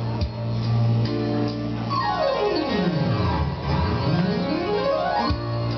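Karaoke machine playing instrumental keyboard music: held chords, then a sweep that falls steeply in pitch and rises back up over about three seconds before the chords return.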